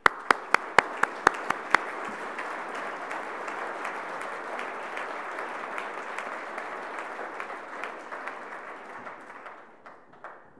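Audience applauding, with about eight sharp, loud claps close to the podium microphone in the first two seconds from the host clapping there. The applause dies away near the end.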